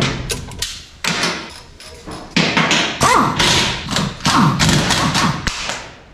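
Metal clunks, clicks and taps from work on a car's front wheel hub and suspension, with stretches of an air impact wrench rattling near the middle.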